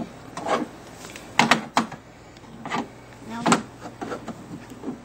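Plastic pens of an interactive whiteboard rubbing and tapping against the board and its pen tray as a toddler draws: a series of short, irregular scrapes and knocks.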